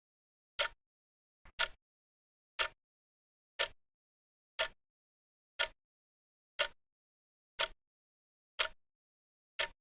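Clock tick sound effect ticking once a second, about ten sharp ticks with dead silence between them. About a second and a half in, one tick comes doubled.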